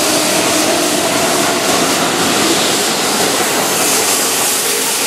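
Keihan 7000 series electric commuter train running past close by, a steady loud rush of running noise with a faint tone held through it.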